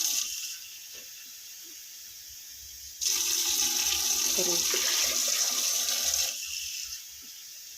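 Water being poured into a cooking pot a bowlful at a time: a pour is ending as the sound begins, and a second pour of about three seconds starts in the middle, with quieter gaps between them.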